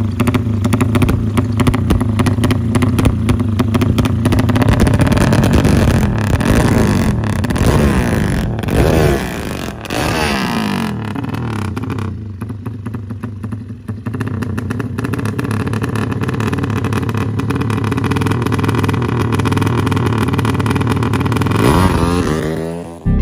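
Drag-style modified motorcycle with a freshly built engine running, revved several times so its pitch sweeps up and down, with another rev just before the end.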